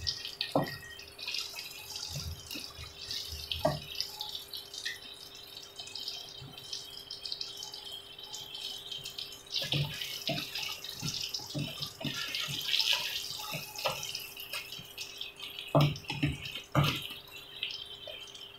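Battered eggplant strips deep-frying in oil in a wok: a steady crackling sizzle, with scattered knocks of a wooden spatula against the pan as the pieces are turned, bunched about ten seconds in and again near the end.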